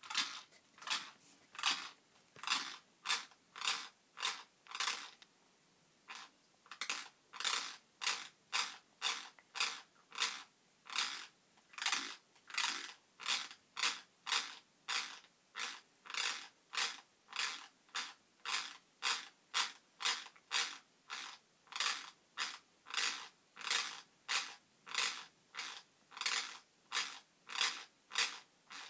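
Teeth grinding, a harsh scraping rasp repeated about twice a second, with one short break about five seconds in.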